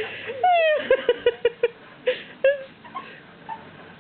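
Giggling laughter: a high squealing rise and fall about half a second in, then a quick run of short laugh pulses, trailing off into quieter sounds in the second half.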